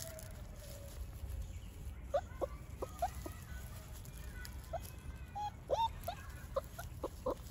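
Scattered short, high-pitched animal calls, about a dozen chirps that start about two seconds in, over a low steady rumble.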